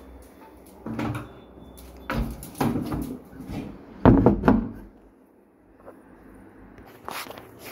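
A metal barrel bolt on a door being worked by hand, giving a series of clacks and rattles from the bolt and door, the loudest cluster about four seconds in.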